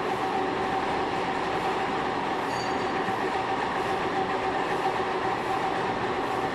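Metal-machining machine tool running steadily while machining a screw conveyor: a continuous mechanical noise with a steady whine and a faint regular beat.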